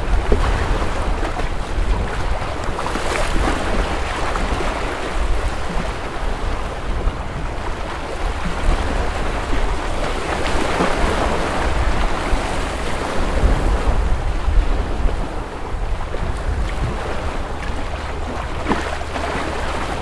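Small waves washing on a lakeshore, swelling and easing every few seconds, with wind rumbling on the microphone.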